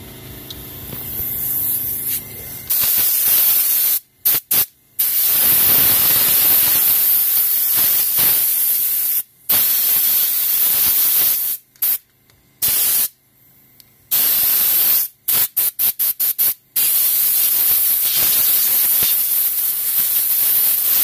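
Compressed-air blow gun hissing at a golf cart's drum brake backing plate, blowing WD-40 and rust grit off the brake parts. The air swells in over the first few seconds, then comes in long blasts cut off abruptly by the trigger, with a run of quick short bursts past the middle.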